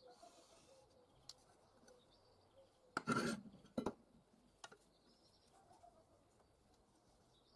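Metal ruler being laid against a steel block on a workbench: a short clatter about three seconds in, a sharp click just after, and a lighter tap about a second later.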